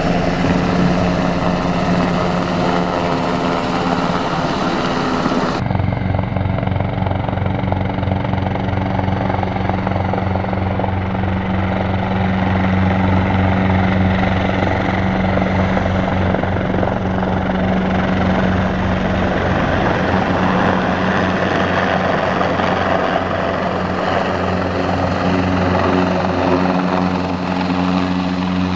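Helicopters flying low overhead, their rotors beating steadily over turbine engine noise: first a San Diego Fire-Rescue Sikorsky S-70 Firehawk, then, after an abrupt cut about five and a half seconds in, a large grey twin-engine helicopter with an even rhythmic rotor thump.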